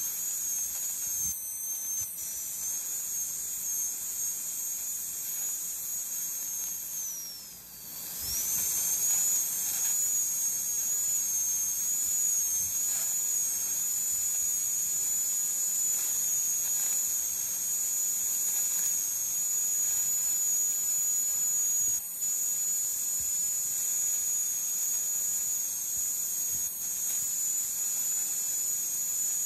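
High-speed dental handpiece with a round bur whining steadily over a high hiss as it grinds out an amalgam filling. About a quarter of the way in its pitch sags and it briefly goes quieter, then it spins back up.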